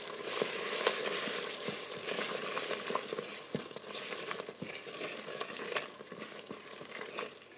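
Silicone spurtle stirring wilted spinach into a thick, sizzling cream sauce in a multi-cooker's ceramic-coated inner pot: wet churning and sizzling with scattered light taps of the spurtle against the pot, growing gradually quieter.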